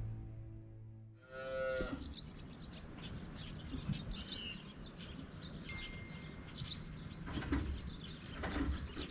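Music fading out, then a single short moo from a cow about a second and a half in, followed by birds chirping repeatedly.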